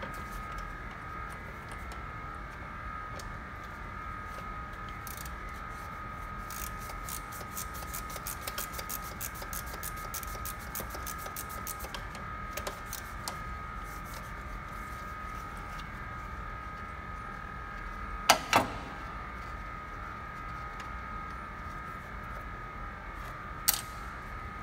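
A 1/4-inch drive ratchet with a T20 socket clicking rapidly for several seconds as it backs out a screw. Later there are a quick double clack and one more sharp clack, over a steady high-pitched hum.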